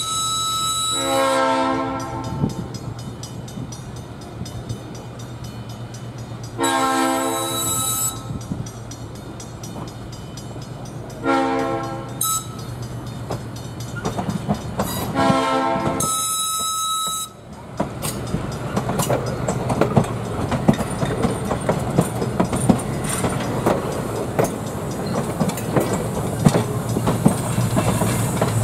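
Diesel switcher locomotive's air horn sounding the grade-crossing signal: two long blasts, a short one and a final long one, over the low hum of the engine. After the last blast the train passes, wheels clicking over the rail joints and growing louder toward the end.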